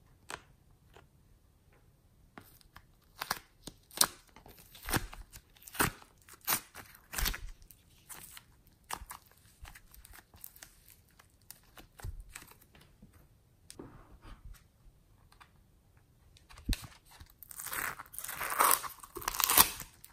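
Soft, airy clay being squeezed and pulled apart by hand, giving a string of sticky crackles and tearing sounds. Near the end comes a denser crunchy crackling as foam-bead slime is squeezed.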